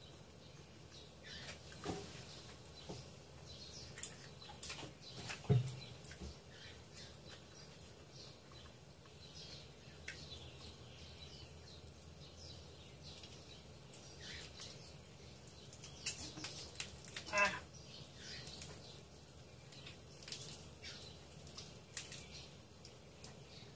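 Close eating sounds of someone working through spicy chicken feet by hand: scattered wet smacks, sucks and small clicks of lips and teeth as the skin is chewed and sucked off the bones. A dull knock comes about five seconds in, and a brief squeaky suck about seventeen seconds in.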